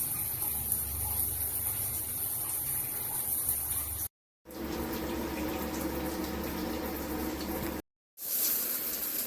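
Water spraying steadily from a SparkPod 3-inch pressure-boosting shower head, heard in three clips split by two brief silent cuts. The middle clip has a fuller, lower spray sound than the hissier first and last clips.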